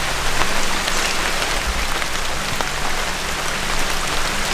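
Steady rain falling, an even hiss with scattered ticks of individual drops.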